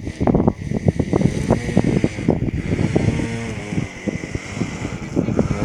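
Wind buffeting the microphone in irregular gusts, over a steady high whine.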